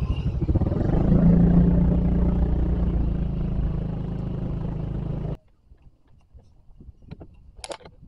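Motorcycle engine and riding noise while riding along at low speed, the engine note rising about a second in as it speeds up, then easing off. It stops abruptly about five seconds in, leaving near quiet with a few faint ticks.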